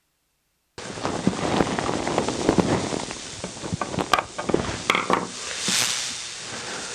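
Irregular clicks, taps and scrapes of hand work with a small tool on wood at a workbench, starting suddenly about a second in, with a brief hiss near the end.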